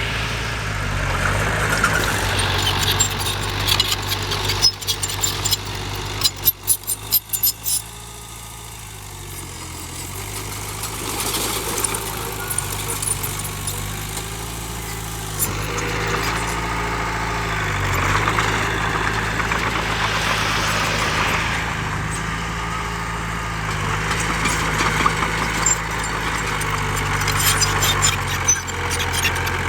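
Heavy diesel engine of earthmoving machinery running, its pitch shifting up and down now and then, with a run of sharp clanks and knocks a few seconds in.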